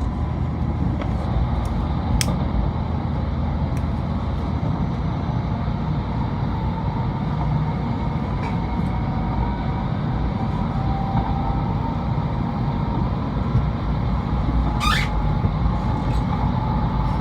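Shinkansen train noise at a station platform: a steady low rumble with faint humming tones, and a short rising squeal about fifteen seconds in.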